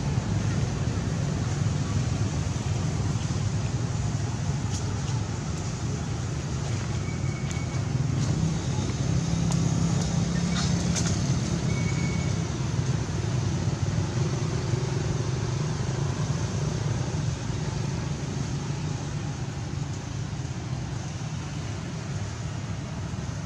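Steady low rumble of background noise, with a couple of faint short high-pitched chirps and a few soft clicks in the middle.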